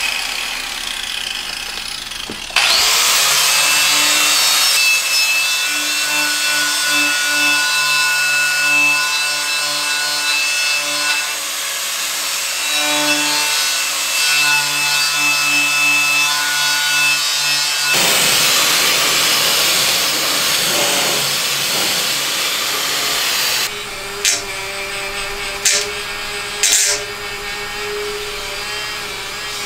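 Angle grinder spinning a wire brush wheel against the painted metal base of a milling machine, stripping off old paint in long continuous passes with a steady whine. Near the end it gives way to a quieter small rotary tool with a little wire brush scrubbing into a corner, with a few sharp clicks.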